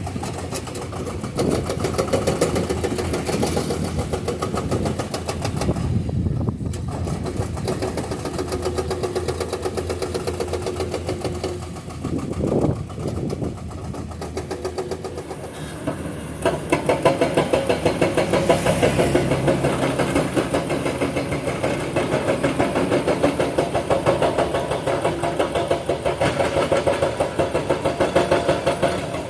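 Excavator's diesel engine running with its hydraulic breaker hammering limestone in rapid repeated blows; the hammering becomes louder and steadier from a little past halfway.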